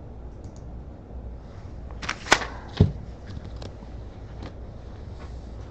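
Two sharp knocks about half a second apart, a little over two seconds in, among faint light clicks of objects being handled.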